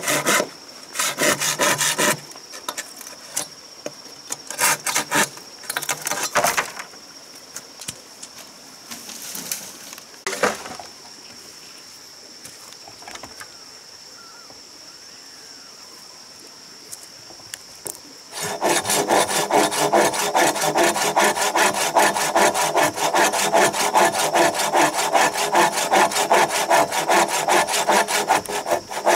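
Hand saw cutting through a green bamboo pole with quick back-and-forth strokes, which stop about two seconds in and start again about eighteen seconds in. In the pause, a steady high insect drone and a few knocks and scrapes of the pole being handled.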